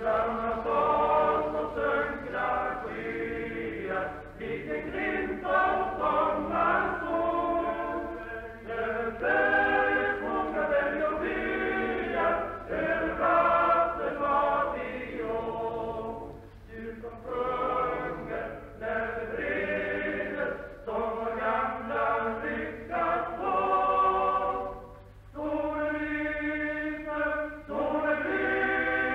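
Men's choir singing in phrases with brief pauses, on an old pre-1935 recording that is dull above about 4 kHz and carries a steady low hum. The singing starts suddenly right at the start.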